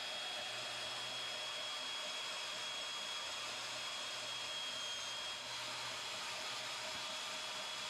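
Portable band saw running steadily as its blade cuts through square steel tubing: an even hiss with a steady high whine.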